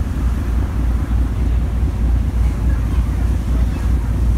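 Wind buffeting the microphone on a ferry under way, over a steady low rumble from the ship and the rush of water past the hull.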